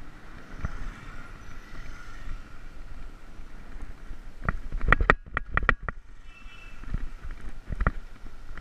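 Wind rushing over a ride-mounted action camera's microphone while it moves along a road. A cluster of sharp knocks and rattles comes about halfway through, with a couple more near the end, as the camera's mount jolts over the broken pavement.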